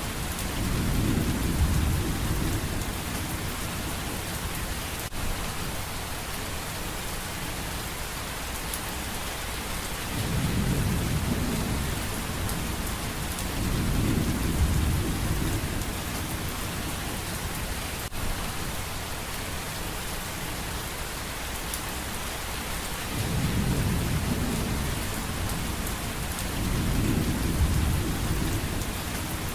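Steady rain with low rolling rumbles of thunder, about five of them, each lasting two or three seconds.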